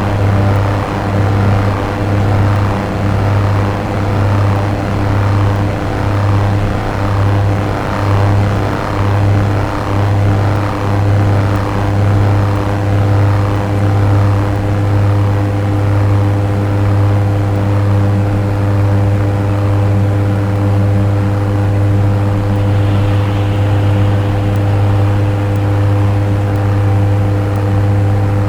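Dark ambient synthesizer drone: a loud, steady low tone with fainter held tones above it, under a pulsing swept texture that repeats a little more than once a second.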